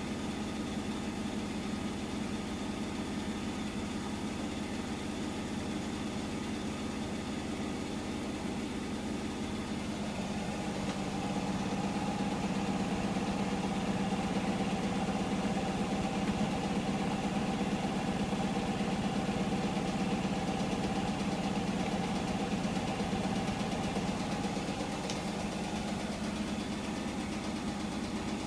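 Hotpoint washing machine spinning, its motor humming steadily. About ten seconds in it grows louder and a higher whine joins in, which eases off again near the end.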